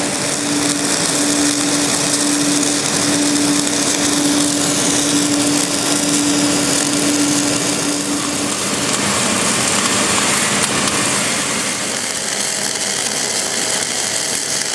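Wire-fed arc welding on thick steel pipe: the welding arc gives a loud, steady hiss. A steady hum lies under it for the first eight seconds or so, then stops.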